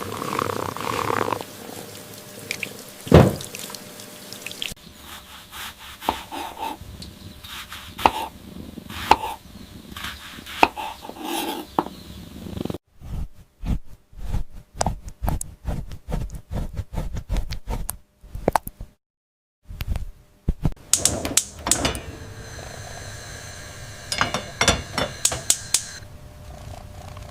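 Kitchen food-preparation sounds: handling noises and scattered knocks, with a fast run of sharp knocks about halfway through, broken by brief silences.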